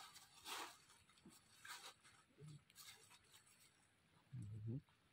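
Faint rustling of a thin plastic bag being handled, in a few short bursts, then a brief low human vocal sound near the end.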